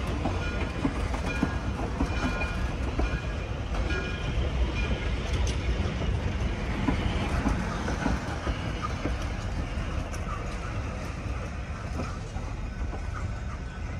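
Steel-wheeled passenger coaches rolling past: a steady low rumble of wheels on rail with scattered clicks and, in the first half, a faint thin squeal. It grows a little fainter near the end as the last coach moves away.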